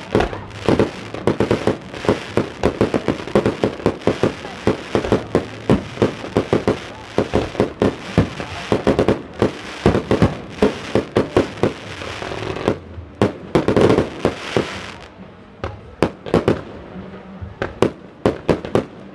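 Fireworks display: aerial shells bursting in a rapid, near-continuous string of bangs and crackles, thinning about three-quarters of the way in to a steadier run of separate pops.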